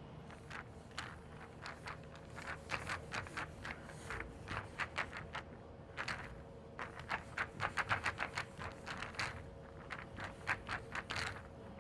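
Pool balls rolling and clacking against one another in irregular runs of sharp clicks, sparse at first and then thick clusters, busiest in the middle, over a low rolling rumble.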